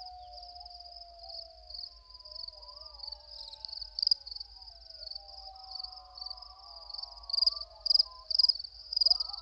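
Crickets chirping in a steady, pulsing high trill, with fainter wavering, gliding tones beneath; the chirps grow louder about seven seconds in.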